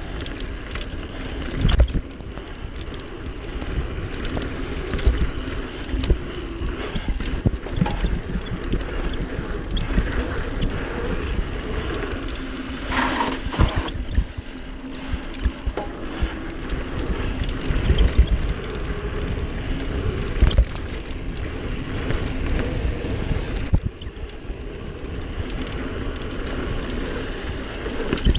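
Mountain bike rolling fast down a dirt singletrack: steady tyre noise on the dirt, with frequent knocks and rattles from the bike over bumps, and wind buffeting the action camera's microphone.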